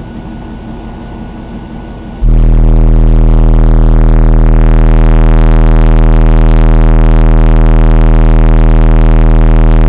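A car-audio subwoofer system playing a steady 40 Hz bass test tone inside a truck cab, starting about two seconds in. The tone is loud enough to overload the microphone into a distorted buzz, and its air pressure blows the passenger's hair up.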